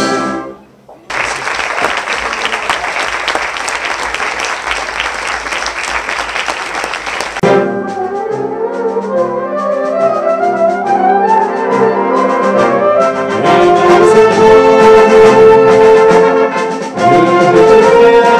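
A wind band's held final chord breaks off, and after a brief pause the audience applauds for about six seconds. Then a concert band starts a new piece, with rising runs leading into loud sustained brass chords.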